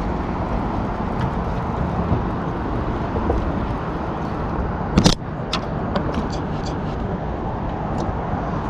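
A steady low engine rumble with a sharp click about five seconds in, followed by a few lighter ticks.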